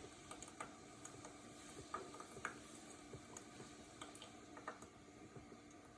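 Near silence: a Levoit ultrasonic humidifier running with a faint steady hum and scattered light ticks, while it puts out no mist.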